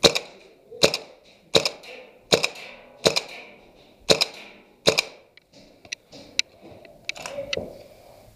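Airsoft gun firing single shots: seven loud, sharp cracks about three-quarters of a second apart, then a few fainter cracks in the last few seconds, each with a short echo off the wooden room.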